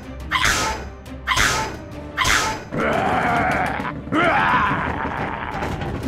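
Background music, with three short sound effects in the first half and a fuller, steadier passage after.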